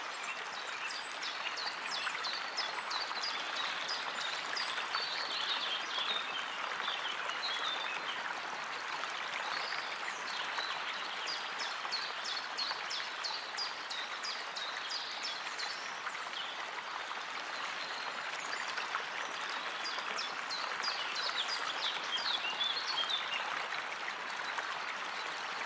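River water rushing steadily over a shallow riffle, with small birds singing in quick repeated chirps in several spells over it.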